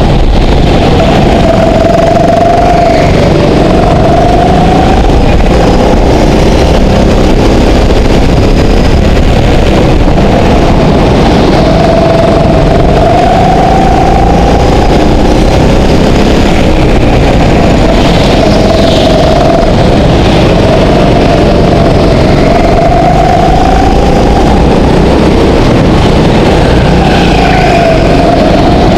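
Go-kart engine heard from on board at racing speed, loud throughout, its pitch climbing and dropping again and again as the kart accelerates and slows through the laps.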